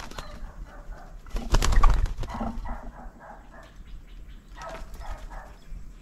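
Spotted dove flapping its wings and taking off, a loud flurry of wingbeats from about one and a half to two seconds in.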